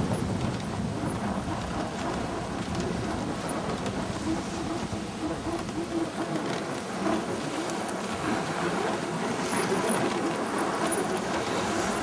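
Steady rushing noise of a husky-drawn dog sled on the move: runners sliding over snow, with wind buffeting the microphone.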